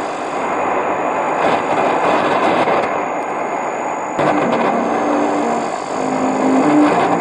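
Weak shortwave AM signal on a Tecsun S-2000 receiver: a loud, steady rush of static and noise with faint music notes showing through, and a sharp crackle about four seconds in.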